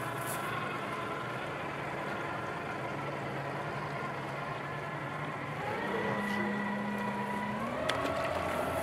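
A motor engine running, its hum made of several steady tones that shift up in pitch about two-thirds of the way through and again near the end. A brief click sounds near the end.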